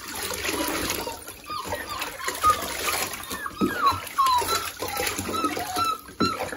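Water poured from a plastic cup splashing over a Labrador puppy in a bathtub, while the puppy whimpers in short, high whines again and again.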